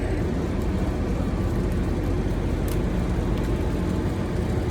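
A vehicle running, a steady low rumble with a few faint clicks.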